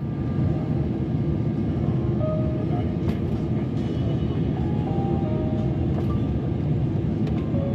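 Steady low rumble and hiss inside a vehicle rolling across an airport apron, with a few faint brief tones and light clicks over it.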